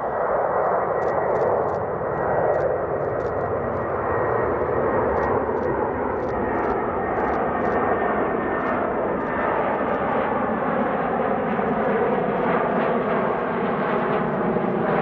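Aircraft engine noise, loud and steady, with a faint high whine in the first half.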